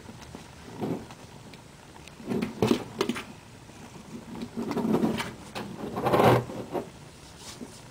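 Domestic cat chirping and chattering at a window, in a series of short bursts with the loudest near the end. This is the excited chatter a cat makes while watching prey outside.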